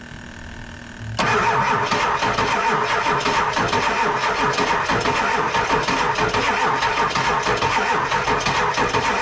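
Starter cranking a Ford F-350's Power Stroke diesel on a first start attempt after an engine swap. It kicks in about a second in and keeps spinning the engine over without it catching. The cranking doesn't sound good, which the owner puts down to run-down batteries.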